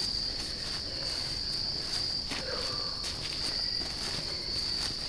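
Steady high-pitched insect chorus, with faint rustling and crunching of dry leaves underfoot as a deer carcass is dragged by rope up a creek bank.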